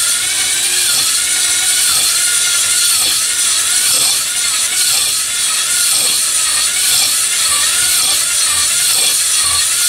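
Electric drill spinning a cylinder hone in the oiled bore of a Kohler KT17 cylinder: a steady whir with the stones scraping the cylinder wall, honing a crosshatch into it. The pitch wavers in an even rhythm about twice a second.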